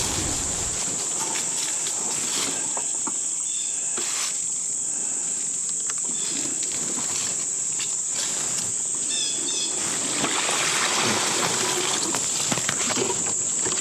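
Insect chorus, a steady high-pitched trilling, over an even rushing noise with scattered small clicks. A few short higher chirps come near the end.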